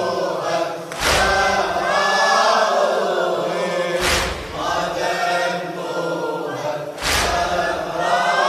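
A group of mourners chanting a latmiyya refrain in unison. A sharp slap of unison chest-beating (latm) lands about every three seconds: about one, four and seven seconds in.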